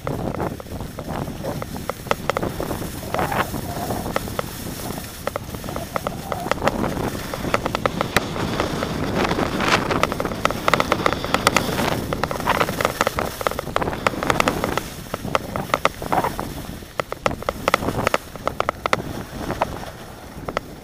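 Wind rushing over an action camera's microphone during a downhill ski run, mixed with the hiss and scrape of edges over packed snow. The loudness swells and falls throughout.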